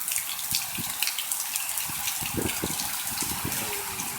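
Rain falling steadily: an even hiss with the patter of many small drops. A few soft low thumps come about two to three and a half seconds in.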